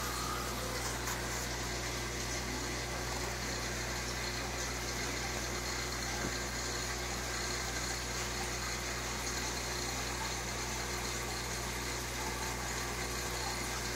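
Aquarium pump running: a steady low hum with an even hiss over it.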